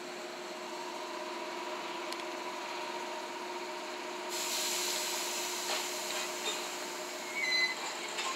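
JNR 115 series electric multiple unit moving off and running past: steady motor and running-gear hum with several held tones, a louder rush of noise from about four seconds in, and brief high squeals from the wheels near the end.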